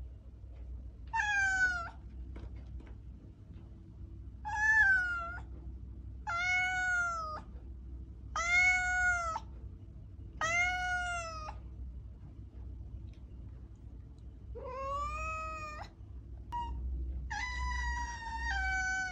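A domestic cat meowing: seven separate meows a second or two apart, each about a second long and rising then falling in pitch; the last one, near the end, is longer, about two seconds.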